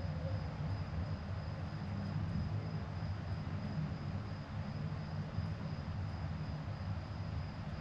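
Crickets trilling steadily in one continuous high note, over a steady low rumble.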